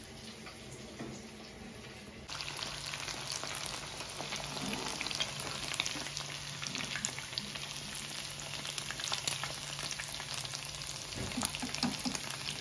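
Batter-coated prawns deep-frying in hot oil: steady sizzling full of small crackles and pops, louder from about two seconds in.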